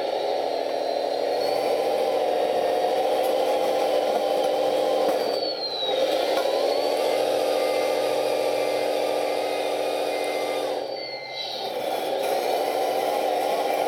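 Electronic diesel engine sound from the sound module of a radio-controlled CAT 966G wheel loader, playing through its speaker. The engine note drops and climbs again twice, about five and eleven seconds in, as the loader changes direction. A thin high motor whine falls and rises at the same moments, and short regular beeps sound while it backs up.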